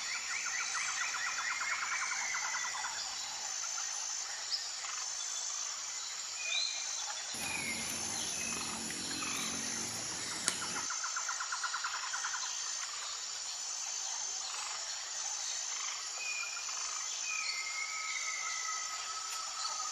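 Outdoor rural ambience: a steady high drone of insects, with birds chirping and trilling on and off. A low hum with a thin high tone joins in for about three seconds in the middle.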